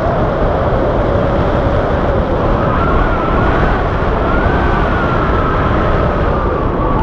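Wind rushing over the camera microphone during a tandem paraglider flight, loud and steady, with a thin whistle that drifts slowly up and down in pitch.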